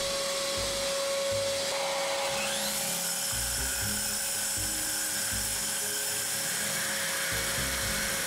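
Milwaukee DD 2-160 XE diamond core drill spinning up with a rising whine about two and a half seconds in, then running steadily as its diamond core bit cuts a socket-box hole into hard concrete. Under it runs the steady hum of a dust extractor.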